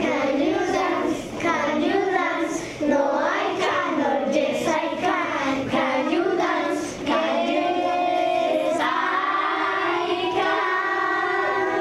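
Children singing together. The melody moves through short phrases and ends on several long held notes.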